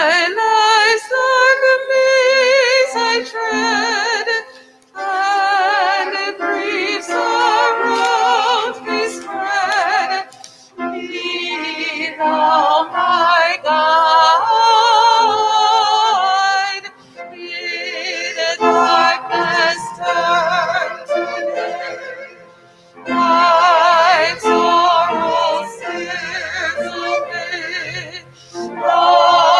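A small church choir singing, in phrases with vibrato broken by short pauses.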